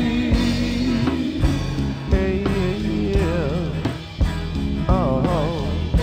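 Background music: a song with a steady beat and a wavering melody line.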